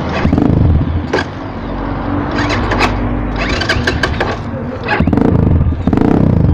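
Asian Beast dirt bike's engine running at low, steady revs while the bike rolls slowly, with a few sharp knocks.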